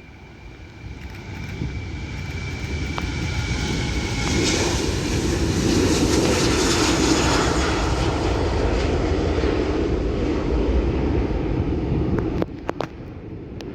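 Jet airliner passing close on its landing approach: the engine noise swells from a high whine to a loud rush peaking about halfway through, then eases off. A few sharp clicks and a sudden drop in level come near the end.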